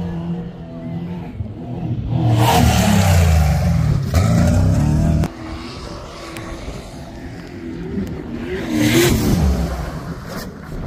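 Off-road vehicle engine revving hard, its pitch climbing. It is loudest from about two seconds in, then drops away suddenly after about five seconds, and a second hard rev peaks near the end.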